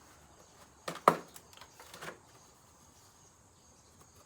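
A few sharp knocks as the old refrigerator's casing is struck or broken: two close together about a second in, the second the loudest, then a weaker one about a second later.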